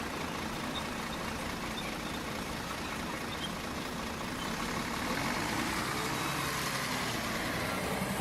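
Steady road traffic noise: vehicle engines running and a general roar, a little louder about five seconds in.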